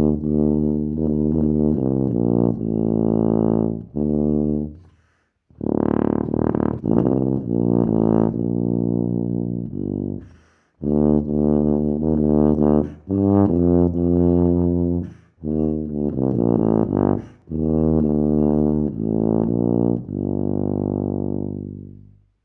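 Wessex TB790 HP Kaiser BBb rotary tuba played solo in its low register: phrases of separate notes with short breaks between them, ending on a long held note that fades out.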